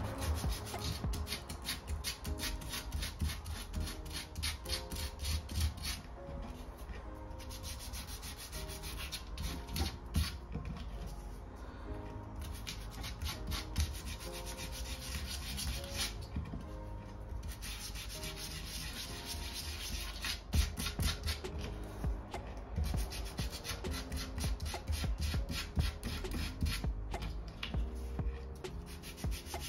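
Sandpaper rubbed rapidly back and forth by hand over the PVC surface of an inflatable hot tub and a repair patch, in quick repeated strokes with a few brief pauses, roughening it to give the adhesive a key.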